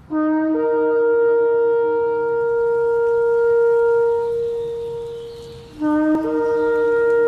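Shofar blown in long held blasts. Each starts on a short low note, then jumps up to a higher note that is held. The first blast fades out after about five and a half seconds, and a second one starts just before the end.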